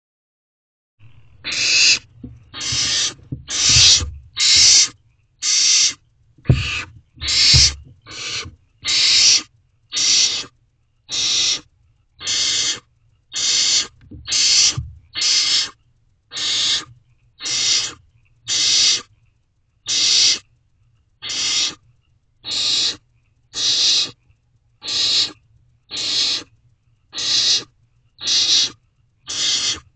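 Barn owl nestlings giving rasping, hissing begging calls over and over, about one a second, each short. A few low thumps come in the first half.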